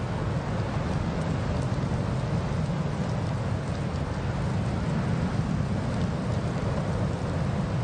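Steady road and wind noise of a car driving through snow and slush: a low, even rumble with a hiss over it and no change in engine pitch.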